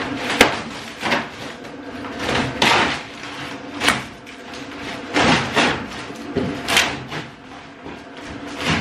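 Cardboard packaging being cut and torn open and pulled off a plastic water tank: an uneven run of rips, scrapes and rustles, with a sharp click about half a second in.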